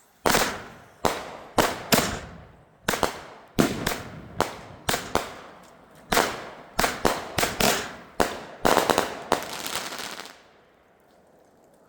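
Fireworks going off: a quick, uneven string of sharp bangs, some coming in fast clusters, that stops about ten seconds in.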